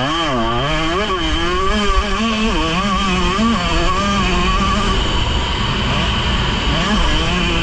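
Motocross bike engine heard from on the bike, revving up and down rapidly over the first few seconds, then running at a steadier pitch, with a low rumble underneath.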